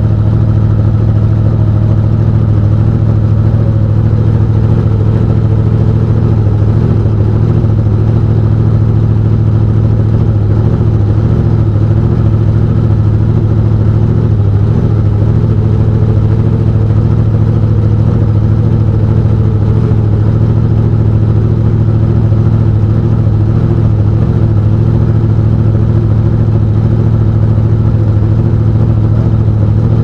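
Drag racing car's engine idling steadily, heard from inside the cockpit.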